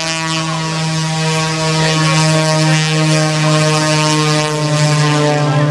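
Modified Pitts S-2S aerobatic biplane's piston engine and propeller running at a steady, even pitch during a low pass.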